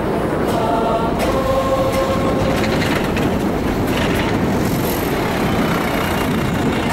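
A city tram passing close by: a steady rumble of wheels on rails with scattered clicks over the rail joints and a brief high wheel squeal about five seconds in. It drowns out a choir that is heard faintly in the first second or so.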